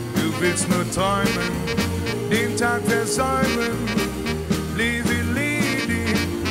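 Instrumental break of a swing-style rock and roll song, with no singing. A lead instrument plays a melody with bending notes over a stepping bass line and drums.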